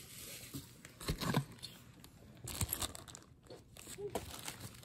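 Bubble wrap being handled and unwrapped: plastic crinkling and crackling in a few short, irregular bursts.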